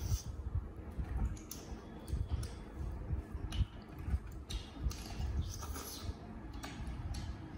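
Eating sounds close to the microphone: chewing and mouth smacking, with scattered soft clicks and thuds of hands working food on the plates.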